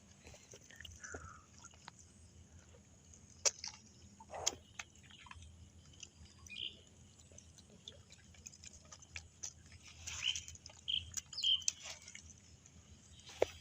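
Quiet, scattered clicks, knocks and rustles from handling the fish catch and trap, with a few short high chirps in between.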